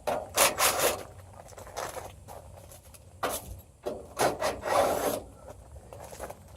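Scraping and rubbing from the parts of an air-conditioning condenser being handled as it is taken apart. The sound comes in several irregular bursts, the longest about four seconds in.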